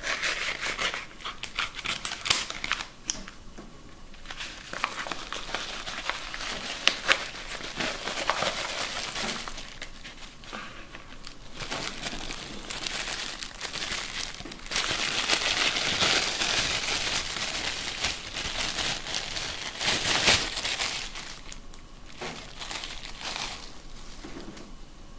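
Product packaging being opened and handled: continuous crinkling and rustling with scattered sharp clicks, loudest and densest for several seconds in the second half.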